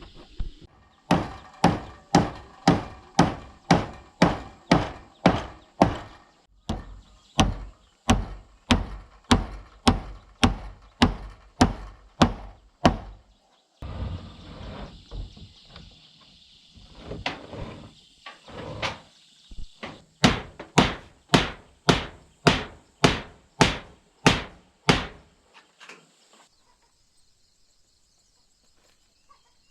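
Hammer blows, evenly paced at about two a second, in two long runs with a short break in the middle; the strikes stop a few seconds before the end.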